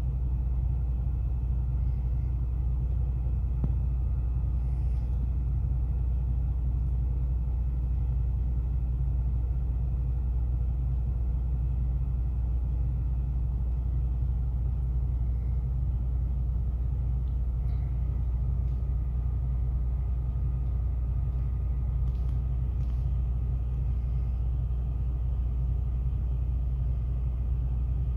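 Steady low rumble of an idling truck engine, unchanging throughout.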